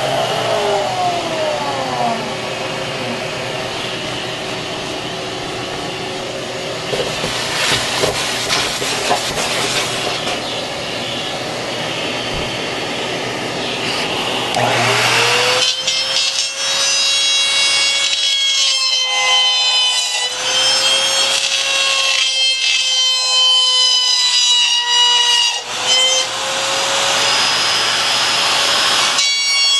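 Shop vacuum running as a steady hiss through its open hose. About halfway through, a handheld trim router spins up to a high whine and keeps running with the vacuum hose fitted to its base, its pitch wavering as it routes the fin-box slot in the board.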